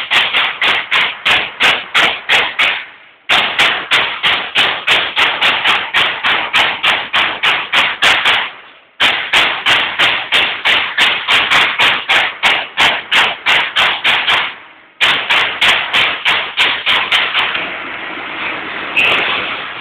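Baykal BPM-T CNC turret punch press punching sheet metal: rapid, evenly spaced strokes at about three to four a second, in runs broken by three short pauses. The strokes stop about two seconds before the end, leaving a steady machine hum.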